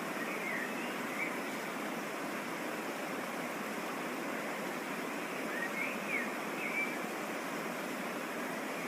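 Waterfall and mountain stream, water rushing steadily. Short high chirps come through twice, once near the start and again around six seconds in.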